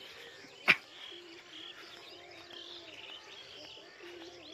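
Outdoor chorus of many small birds chirping and calling, with a faint steady background hum. A single sharp knock, the loudest sound, comes less than a second in.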